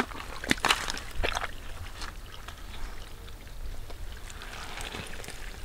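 Hands squelching and splashing in mud and shallow muddy water, with a few sharp wet slaps in the first second and a half, then softer sloshing and squelching.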